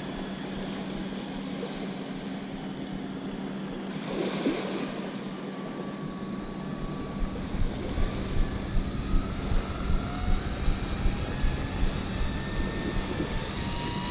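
Whine of a DJI Mavic Pro quadcopter's propellers, its pitch gliding up and down as the drone flies. From about seven seconds in, this comes with a run of footsteps on sand, roughly two to three a second.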